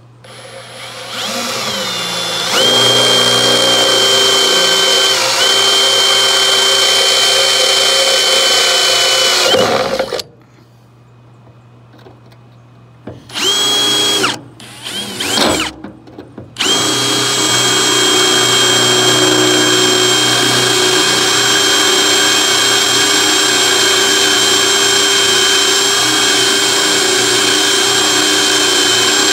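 Cordless drill boring pilot holes with a small 11/64-inch twist bit. It winds up to full speed over the first couple of seconds and runs steadily for about eight seconds, then stops. After a pause it gives a few short trigger bursts and then runs steadily again to the end.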